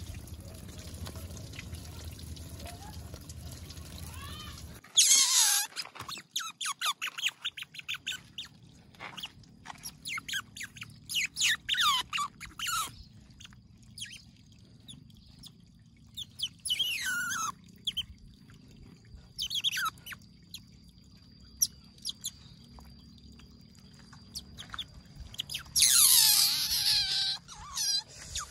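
Water spraying from a handheld shower hose for the first few seconds, then a baby otter calling in bursts of high-pitched squeaks and chirps, loudest just after the spraying stops and again near the end.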